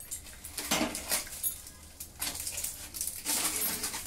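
Dry, charred leaves crinkling and crackling as they are pressed and peeled back by hand, with some clinking of steel dishes and utensils.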